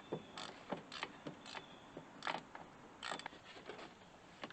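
Faint metal clicks and clinks from hand tools working on engine-bay hose clamps and bolts, coming irregularly, a few a second.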